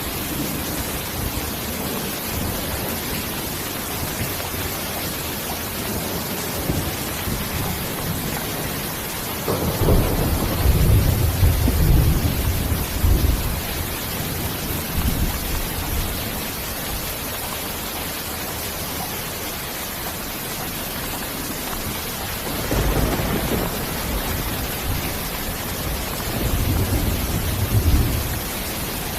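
Steady rain falling as an even hiss, with thunder rumbling low twice: once about ten seconds in for a few seconds, and again in the last quarter, rising to a peak near the end.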